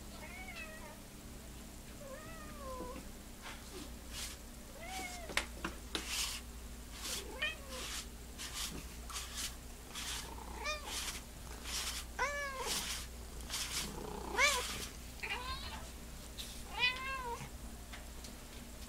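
Domestic cat meowing again and again, about ten short calls that rise and fall in pitch. Between the meows come crackly rasps as a sticky lint roller is rolled over its fur.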